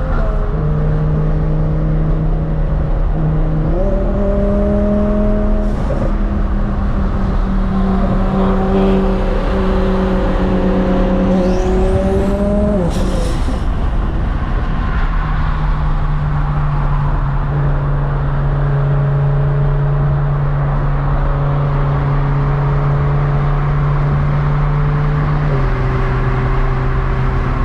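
Sports car engine running at a steady cruising speed, with a steady pitched drone. The pitch steps up about four seconds in, drops back about thirteen seconds in, and dips slightly again near the end.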